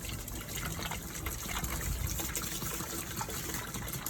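Food-grade white vinegar being poured into a bucket, a steady gushing fill.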